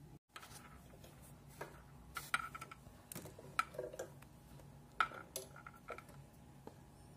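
Scattered light clicks and taps of a TV antenna's cable plugs and plastic parts being handled, over a faint steady low hum.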